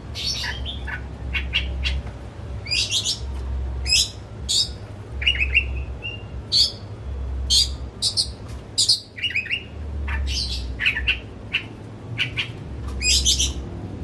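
Oriental magpie-robin (kacer) singing a fast, varied song of short sharp notes and whistled phrases, one after another without pause.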